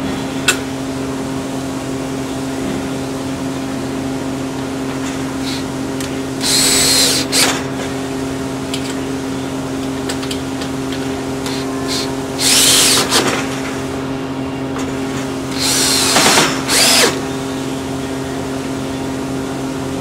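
Drill driver running screws in to fix a steel horse stall gravity latch into a wooden stall front, in three short bursts several seconds apart, over a steady background hum.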